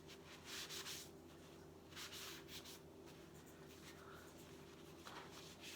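Faint rubbing strokes of a phone being wiped and polished, a few short strokes over a low steady hum.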